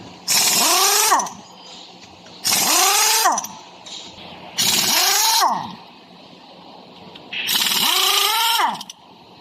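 A power tool run in four short bursts about two seconds apart, each time with a hiss and a motor whine that rises and falls.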